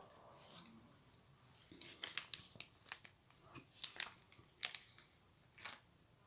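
Irregular small clicks and ticks with faint rustling: fly-tying tools and materials being handled at the vise.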